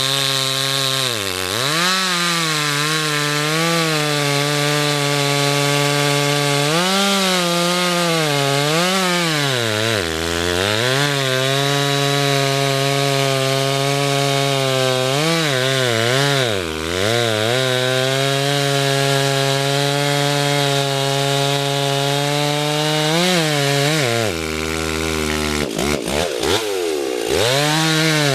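Two-stroke chainsaw running at high revs while cutting wood, its pitch dipping again and again as the chain bogs down in the cut and then picking back up. Near the end the engine drops lower for a few seconds with a quick flutter of revs before going back to full speed.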